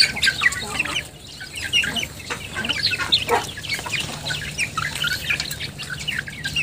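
A flock of young Thai native chickens feeding from a pan, with many short calls overlapping all the way through.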